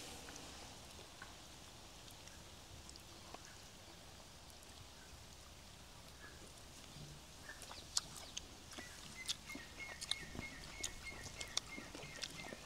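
Faint sounds of eating by hand: quiet for several seconds, then scattered small clicks and smacks. A faint thin high steady tone runs for a few seconds near the end.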